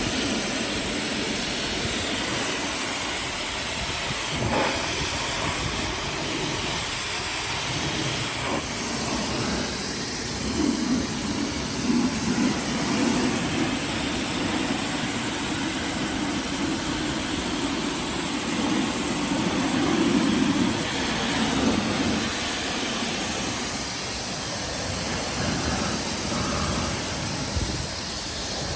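Karcher K1700 electric pressure washer running and spraying, a steady hiss of water jet over the pump's running sound, which cuts off suddenly at the end.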